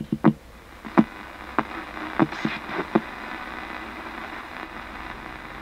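Ghost box: a portable Thomson digital radio sweeping through the FM band, giving a steady hiss of static. Short chopped blips of broadcast sound break through several times in the first three seconds, then only the static remains.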